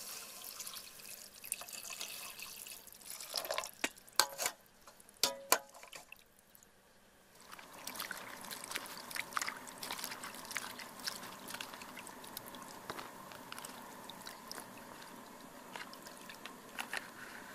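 Water poured into a metal pot, then a few sharp knocks. After a short lull, water splashes and drips steadily as vegetables are washed by hand in a plastic bowl of water.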